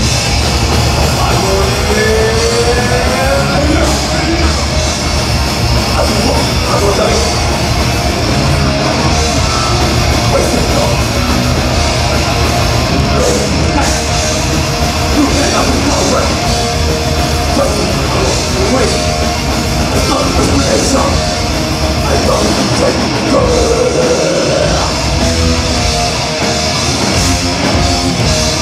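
Thrash metal band playing live, with distorted electric guitars, bass and drums, loud and continuous.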